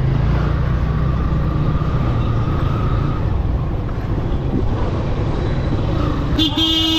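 Road traffic running steadily with a low rumble, and a vehicle horn starting to sound near the end.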